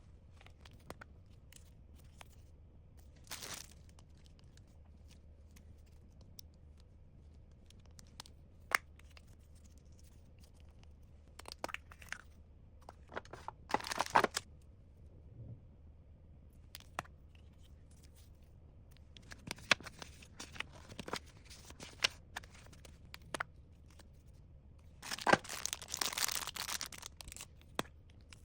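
Packaging being torn open and crinkled in short bursts, with scattered light clicks and taps between them. The longest, loudest stretch of rustling comes near the end.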